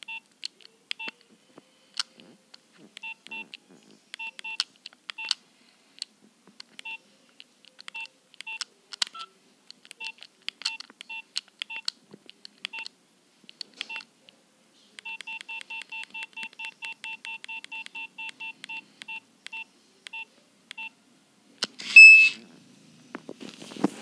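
Nokia 2600 keypad tones: short beeps with key clicks as the menu keys are pressed, one at a time at first, then a fast run of about four a second for several seconds as a key is pressed repeatedly. Near the end comes a brief, much louder tone, then a rustle of handling as the phone is set down on cloth.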